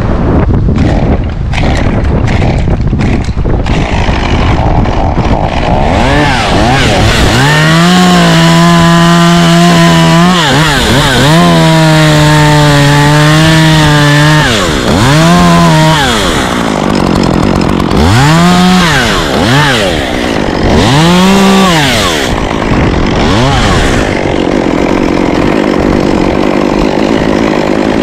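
Chainsaw revving up and held at full throttle in two long stretches, then blipped up and down several times. Wind buffets the microphone in the first few seconds.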